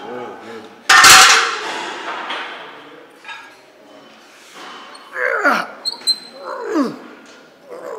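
A loud thump about a second in. From about five seconds in come a man's short strained grunts, each falling steeply in pitch, about one every second and a half, as a lifter strains through curl reps.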